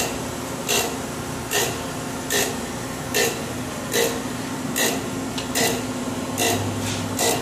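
Acra ASG-1020HS hydraulic surface grinder grinding a tool: short, sharp bursts of the abrasive wheel cutting, repeating a little faster than once a second as the reciprocating table carries the work back and forth under the wheel, over the machine's steady hum.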